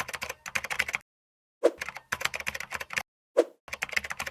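Rapid clicking like typing on a keyboard, in three bursts, each starting with a soft thump.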